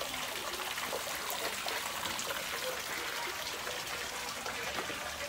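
Water pouring from the spout of a stone shrine purification fountain and splashing into its basin, a steady splashing.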